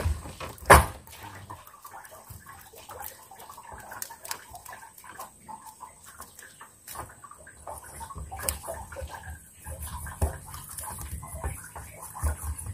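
Water splashing with scattered small clicks and knocks; one sharp knock about a second in is the loudest sound.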